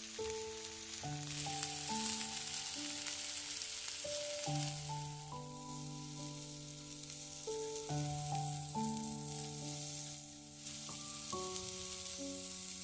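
Lamb chops sizzling as they sear in a hot ridged grill pan: a steady frying hiss. Soft background music of held notes plays along with it.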